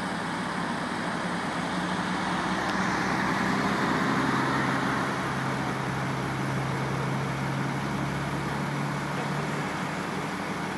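Road traffic and running vehicle engines: a steady rush of road noise that swells about three seconds in. A low, steady engine hum holds for several seconds after the swell.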